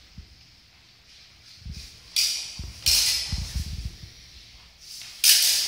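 Steel rapier blades clashing and scraping together three times, each strike ringing away briefly in the hall, with dull thuds of footwork on the floor between the first two.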